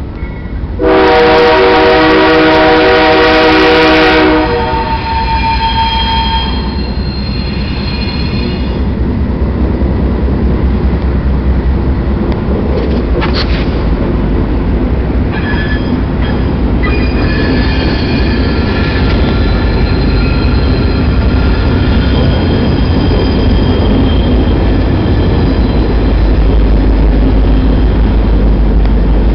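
Locomotive air horn sounding one long blast about a second in, lasting about three seconds, over the low rumble of eight diesel locomotives drawing near. As the locomotives reach and pass the crossing, high steady squealing from steel wheels on the rails comes and goes.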